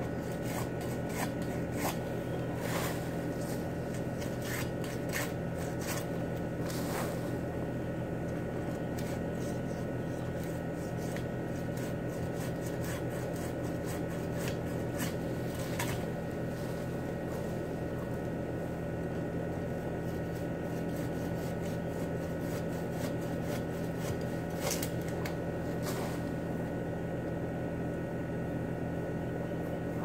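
A manual pole pruner cutting and scraping at palm fronds overhead, heard as irregular clicks and scrapes, over a steady mechanical hum.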